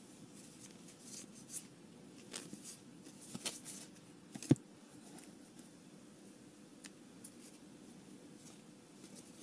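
Flesh and Blood trading cards being handled: flipped through in the hand and slid one behind another, with soft rustles and light clicks. A sharper tap about four and a half seconds in as a card is set down on a pile. Only a few light ticks after that.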